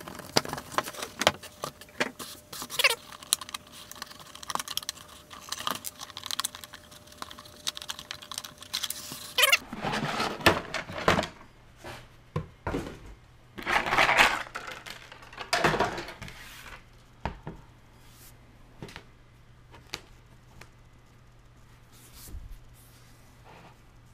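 Cardboard box and packaging being handled and opened: a run of scrapes, clicks and knocks, with louder bursts of rustling about ten and fourteen seconds in. It is quieter for the last few seconds.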